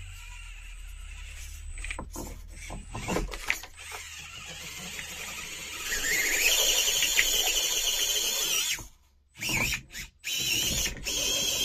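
Micro RC rock crawler's small electric motor and gear train whining under throttle as it climbs steep rock, with a few knocks from the chassis and tyres on the rock. About six seconds in, the whine rises in pitch and grows loud, then cuts off suddenly and returns briefly near the end.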